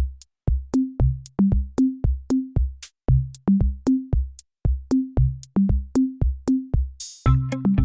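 Electronic background music: a drum-machine beat of deep kick and pitched tom hits, with a cymbal swell about seven seconds in, after which a bass line and other instruments join.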